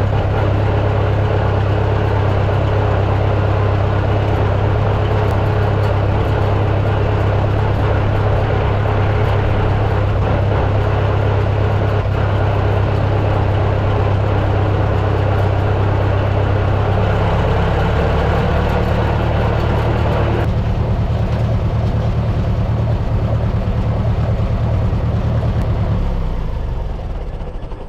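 A vehicle engine running steadily. It changes note about two-thirds of the way through, eases off, and dies away just before the end, as when it is shut off.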